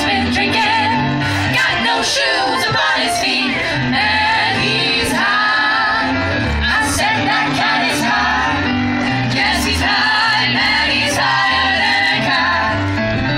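Vocal jazz ensemble of mixed female and male voices singing in harmony, amplified through microphones and PA speakers, over steady low bass notes.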